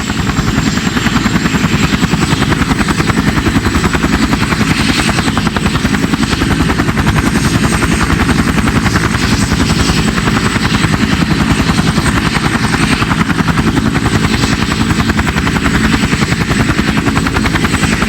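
Helicopter rotor blades making a fast, steady chopping, with a thin high whine running over it; the sound fades in at the start.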